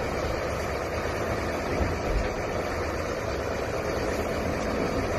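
Fishing boat's engine running steadily, a low rumble with wind and sea noise over it.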